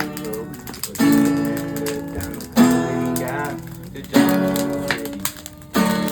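Acoustic guitar strummed in a slow, steady rhythm, with a fresh chord struck about every second and a half and left to ring between strokes.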